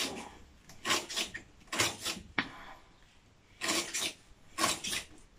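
Knife chopping lemongrass finely on a wooden chopping board: short knocks, mostly in pairs, about once a second, with a pause of about a second near the middle.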